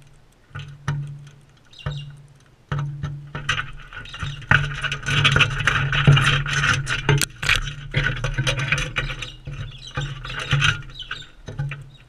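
Galahs feeding at close range: many quick clicks and taps of beaks on seed and the feeder, with squeaky chatter that gets busier from about four seconds in.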